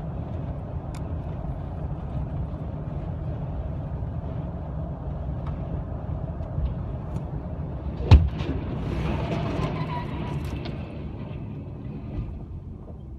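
Steady road and engine rumble heard from inside a car following a loaded log truck. About eight seconds in, a single loud crash as the truck goes over and spills its logs, followed by a couple of seconds of rough tumbling and scraping noise.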